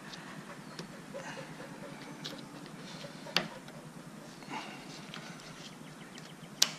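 Small metal-on-metal clinks and two sharp clicks about three seconds apart: the retaining clip and keeper being fitted back onto the greased boom-cylinder pin of a John Deere 310D backhoe.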